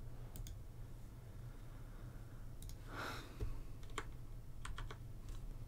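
Light, scattered clicks of a computer keyboard and mouse, a handful spread out with a small cluster near the end, plus a brief soft rustle about three seconds in, over a faint low steady hum.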